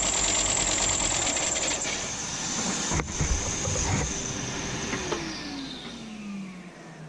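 Electric power sander running at full speed with a high whine, a few knocks partway through. About five seconds in it is switched off and the pitch falls as it spins down.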